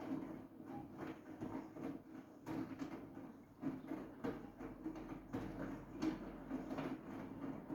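Siemens iQ700 washing machine running, its drum turning with an uneven, surging rumble and light knocks.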